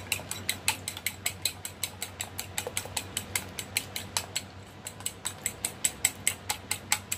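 Metal fork beating raw eggs in a ceramic bowl, the tines clicking against the bowl in a fast, steady rhythm of about five or six clicks a second.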